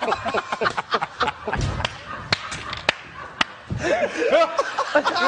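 Several people laughing hard together. A few sharp knocks come through the first half, and loud laughs rise and fall near the end.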